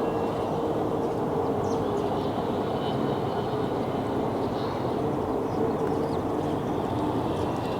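Steady rushing of flowing river water, an even continuous noise with no break.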